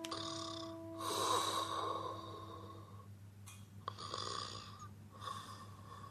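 A person snoring in sleep: a few long, noisy breaths, one every second or so.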